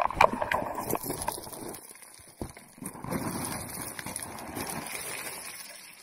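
Loose shale scraping and clattering under a person sliding down a scree slope on their backside. The sharp clatter of stones is loudest in the first second, then gives way to softer scraping and shuffling over the stones that fades near the end.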